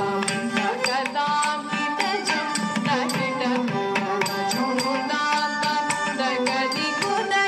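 Carnatic music accompanying a Bharatanatyam dance: a steady stream of rapid hand-drum strokes under a melody line that holds and bends its notes.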